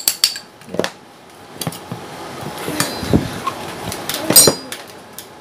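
A flat metal blade is tapped into the seam of a floor fan's steel motor casing. A few quick ringing taps come at the start, then scattered knocks and clinks as the casing and blade are handled, with one loud metallic clink about four and a half seconds in.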